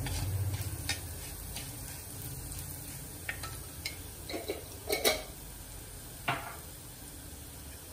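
Steel spoon stirring and scraping chopped onion, green chilli and garlic frying in a clay pot, with scattered clicks of the spoon against the pot over a faint sizzle. The loudest clatter comes about five seconds in.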